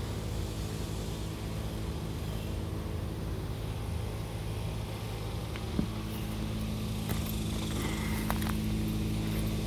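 Steady mechanical hum of an outdoor air-conditioner condenser unit running, growing a little louder in the second half, with a few faint clicks.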